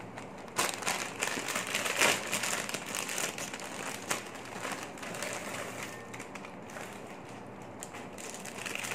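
A crinkly foil snack-chip bag being torn open and tipped out over a bowl: irregular crinkling and crackling with a few sharper rustles, then the crackle of a plastic-wrapped toy prize being handled.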